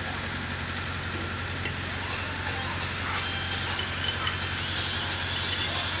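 Plastic bag crinkling as it is pulled over a metal wheel hub, in short crackles mostly in the middle, over a steady low machine hum.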